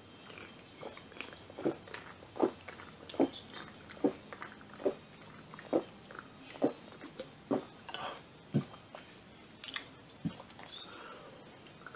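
A person chugging a can of energy drink: a steady run of loud gulps, about one a second, as each swallow goes down.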